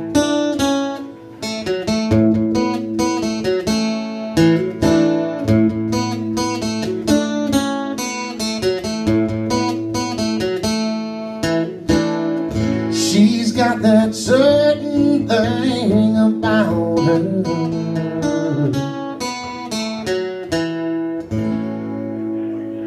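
Acoustic guitar strummed steadily in a live country-song instrumental, with sustained chords and a melody line that slides in pitch about halfway through.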